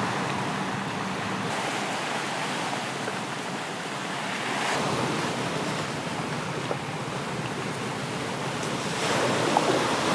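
Ocean surf on the shore, a steady rushing wash that swells and eases every few seconds, with a couple of light taps near the end.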